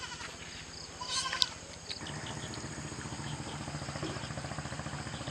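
A young animal on a rope gives one short, high cry about a second and a half in. From about two seconds in, a steady, fast-pulsing low drone takes over.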